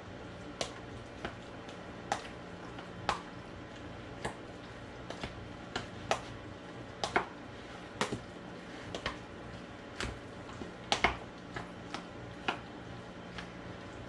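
A spoon tapping and clinking against a bowl while stirring a wet tomato and onion mixture in olive oil, in short irregular knocks about once a second.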